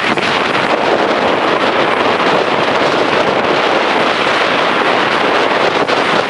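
Strong wind buffeting a small handheld recorder's microphone: a loud, steady rushing that masks everything else.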